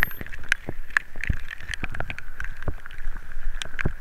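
Irregular knocks and taps, several a second, as the camera travels along a rough dirt track in the rain, over a steady high-pitched whine.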